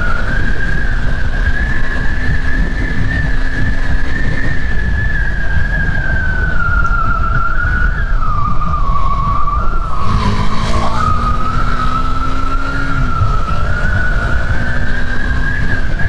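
Motorcycle riding at about 70 km/h: heavy wind buffeting on the microphone over the engine, whose note climbs slowly and falls back twice, with a steady high whine above it.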